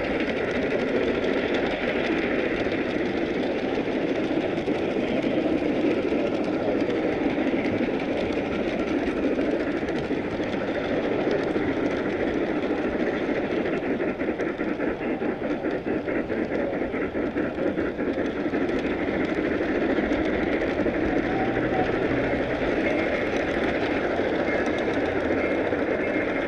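Small-scale model train running along its track, heard from on board: a steady rolling rumble of wheels on the rails, with faint rapid clicks midway, over the murmur of an indoor crowd.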